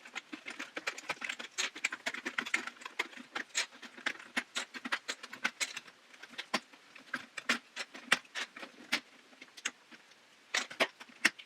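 Plastic keycaps being pried off a KeyTronic E3601 keyboard with a butter knife: a rapid, irregular run of small plastic clicks and clatter, thinning out briefly near the end.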